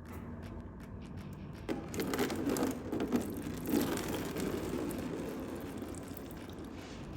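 Hands-on work on a stripped-down engine: scraping and crinkling handling noise with a cluster of knocks and clicks from about two to four seconds in, then quieter.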